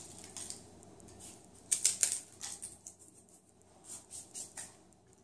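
Tortilla chips crunched and crumbled by hand into a bowl of soup: short, dry crackles, loudest about two seconds in, then a few fainter ones.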